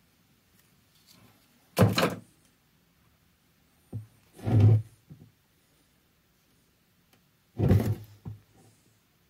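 Three dull knocks, a few seconds apart, as a Sea-Doo jet pump housing is turned over and moved about on a wooden workbench, with a few faint ticks in between.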